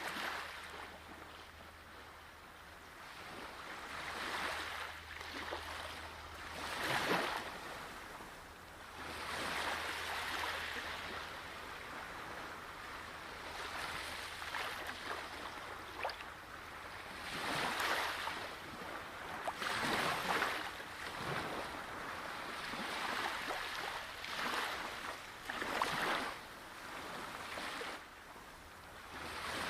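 Ocean waves breaking and washing in, the rush of water swelling and falling back every few seconds, with louder surges about a quarter of the way in and again through the second half.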